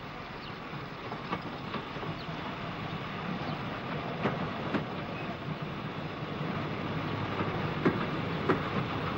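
Steam train approaching and growing steadily louder, with scattered sharp knocks and clanks, the two loudest near the end.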